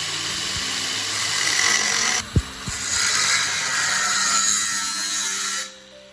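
Power cutting machine's abrasive disc cutting through square steel tubing, a loud steady grinding hiss. It breaks off briefly a little past two seconds in with one sharp clank, then resumes and stops shortly before the end.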